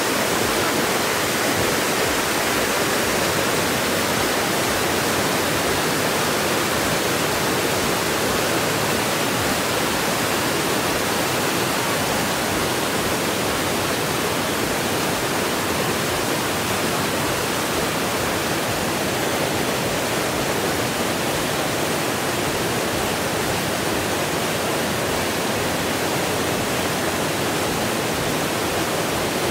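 River water rushing steadily over rock ledges and rapids: an unbroken rush of white water.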